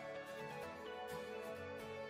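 Instrumental background music with held notes over a slowly stepping bass line.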